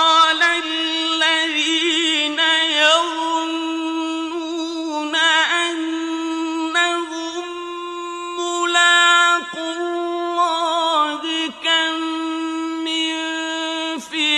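A male Quran reciter chanting in the melodic tajweed style, drawing out long held notes in a high voice and ornamenting them with quick wavering turns, pausing briefly for breath a few times.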